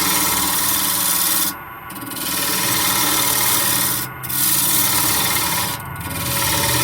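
Spinning mahogany blank on a wood lathe being worked with a tool, a steady scraping hiss over the lathe's hum, lifted off three times for a moment.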